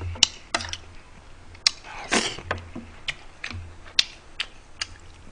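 Mealtime utensil noises: short sharp clicks and clinks of a metal spoon and chopsticks against the plates and bowls, with a couple of brief scraping noises.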